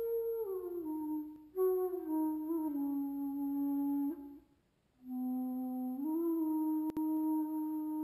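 Background music: a flute-like wind instrument playing slow, held notes that slide down from one pitch to the next, with a brief pause about halfway through.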